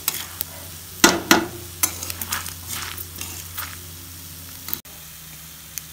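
Metal spatula stirring and scraping dried red chillies, dals and coriander and cumin seeds around a metal kadai as they roast on low flame, with a light sizzle. The scrapes come irregularly, the loudest about a second in, over a steady low hum.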